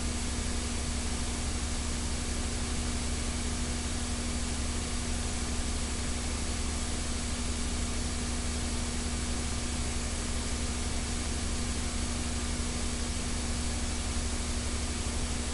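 Steady hiss with a low hum and a faint steady mid-pitched tone, unchanging throughout: background noise of the recording with no other sound.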